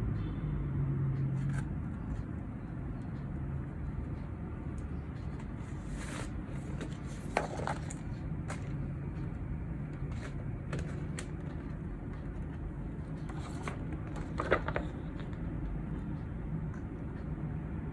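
Light handling noises, clicks and rustles of something being moved about, with two sharper knocks about seven and a half and fourteen and a half seconds in, over a steady low hum.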